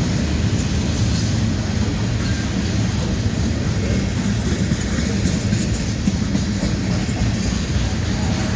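A train passing, a steady low rumble of its wheels and cars on the rails.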